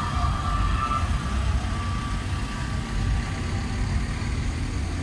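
Hino 500 diesel rescue truck and ambulance vans driving slowly past, a steady low engine and road rumble.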